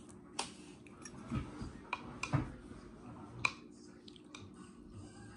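Metal chopsticks and a spoon clicking against a ceramic bowl of noodle soup, a few sharp separate taps spread out, with soft chewing sounds between them.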